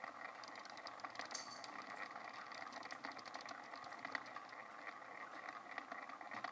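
Small motorized rotating display turntable running: a faint steady hum with light, irregular ticking.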